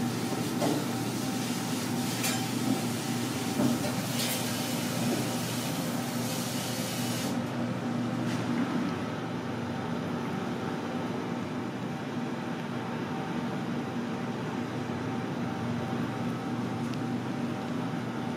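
Steady indoor room noise: a constant hum with hiss, like a ventilation fan, broken by a few light clicks in the first few seconds. About seven seconds in, the hiss drops away.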